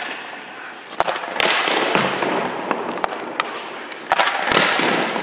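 Hockey skates scraping across rink ice in two longer hissing passes, mixed with sharp clacks of stick and puck that echo around the rink.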